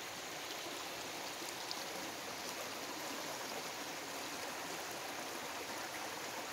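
Small, shallow creek running steadily over a rocky bed, an even rushing of water.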